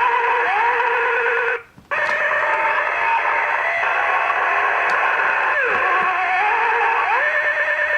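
Tinny electronic Halloween sound effect played through a children's sound book's small speaker: wavering, gliding tones over a steady hiss. It cuts out briefly about a second and a half in, then starts again.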